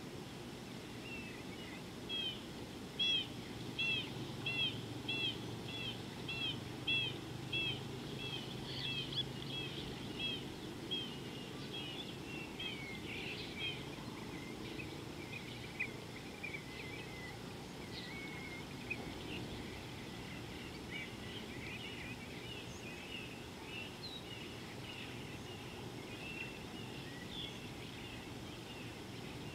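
Birds calling over a steady background hiss. One bird repeats a short, high call about twice a second for some ten seconds; softer, scattered chirps follow for the rest of the time.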